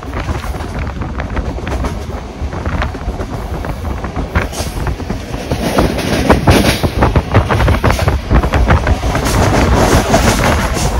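Passenger train running along the line, heard from an open carriage window: the wheels clatter and click over the rails amid steady running noise. It grows louder about halfway through.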